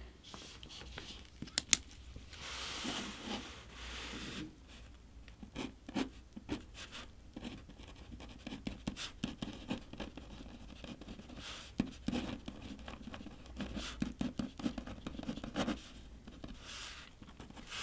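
Pen writing on paper: a run of short scratchy strokes, with small clicks and taps on the tabletop between them and one sharp click near the start.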